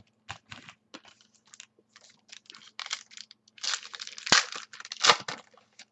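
Trading cards being flipped and handled: quick irregular clicks and rustles, thickening in the second half, with two louder snaps.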